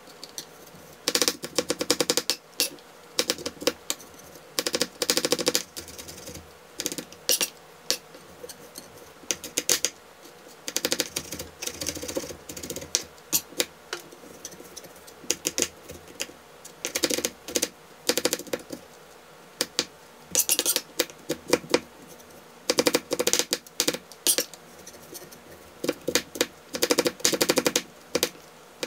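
Chef's knife mincing garlic cloves on a plastic cutting board: runs of rapid sharp taps in bursts of a second or two, with short pauses between.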